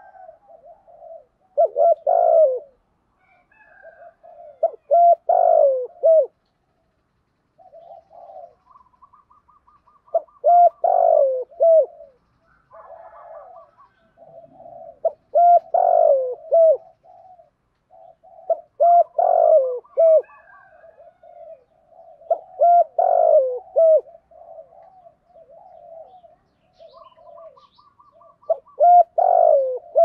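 Spotted dove cooing, a caged decoy calling to draw in wild doves: about seven loud multi-note coo phrases a few seconds apart, with softer coos in between.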